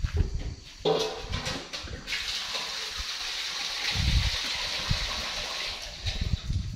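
Water from a hose gushing into a metal basin, a steady rush that starts about two seconds in and stops shortly before the end. A few knocks and clatter come before it.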